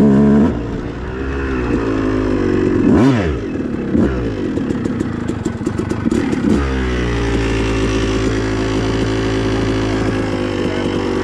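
A 250cc two-stroke motocross bike engine revving, with two quick throttle blips that rise and fall in pitch, then dropping back and running at a steady, low, even speed for the second half.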